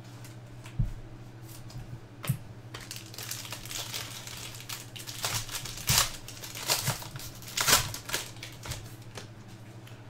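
Silver foil trading-card pack wrapper crinkling and tearing as it is opened, in a run of crackly bursts. Two short knocks come first, about one and two seconds in.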